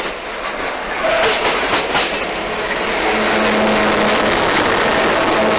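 Grain hopper cars rolling past close by, with wheels clicking over the rail joints. From about three seconds in, a diesel-electric locomotive placed in the middle of the train passes with a steady engine drone.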